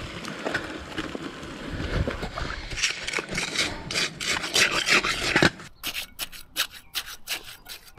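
Trowel scraping and packing wet concrete mix, scooped from a plastic bucket and worked around the base of a wooden post, with a gritty rasping sound. From about five and a half seconds in it gives way to a run of short sharp taps and clicks.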